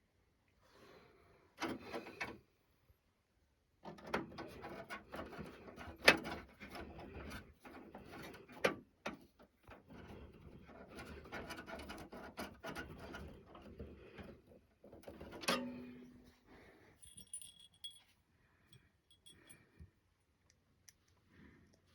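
Small metal screws and parts rattling and clicking while a motherboard is screwed into a PC case. There is a long stretch of dense rattling with a few sharp clicks among it, then only scattered faint ticks.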